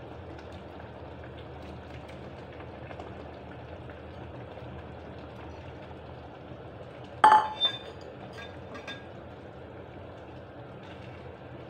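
A utensil striking metal cookware: one sharp, ringing clink about seven seconds in, followed by a few lighter clinks. A steady low background rumble runs beneath it.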